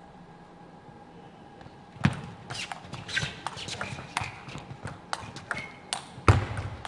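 Table tennis rally: the ball clicking sharply off the rackets and the table at an irregular pace, with a few short shoe squeaks on the court floor. It starts about two seconds in, after quiet hall tone, and has one louder knock near the end.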